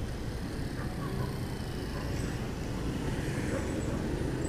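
Kawasaki Fury 125 motorcycle engine running steadily while riding, with road and wind noise picked up by a phone microphone.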